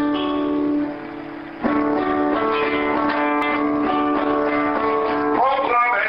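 Acoustic guitar played slowly, chords left ringing, with a fresh chord struck about one and a half seconds in and held. A man's singing voice comes in near the end.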